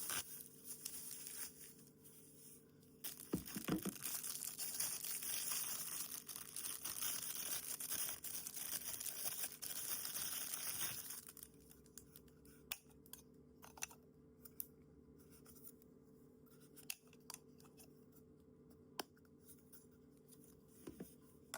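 Packaging being torn and peeled open by hand, a rustling, tearing hiss for about eight seconds, then scattered light clicks and taps as the pieces are handled.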